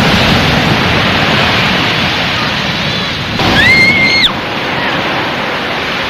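Sea waves washing on the shore, a steady rush of noise. About three and a half seconds in, a single high call sounds once for about a second, rising, holding and then dropping.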